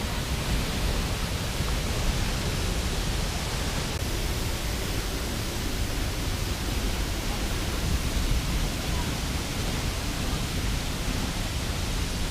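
Waterfall rushing: a steady, even roar of falling water with a strong low rumble.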